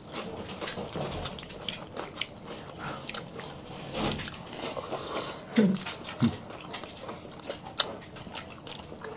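Mouth sounds of several people eating by hand: close chewing, lip smacks and small clicks, with a couple of brief vocal murmurs past the middle.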